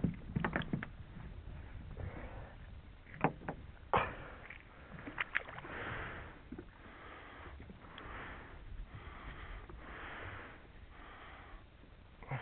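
A few sharp knocks and clicks from fishing tackle being handled on a small boat, then soft swishes of water against the hull that come back every second or two.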